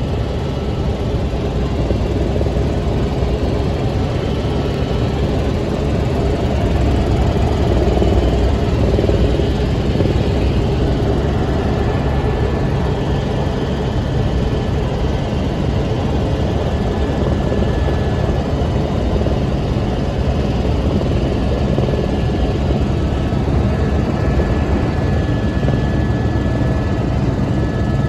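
Helicopter in flight heard from on board: a steady, loud drone of engine and rotor, with a faint steady high whine above it.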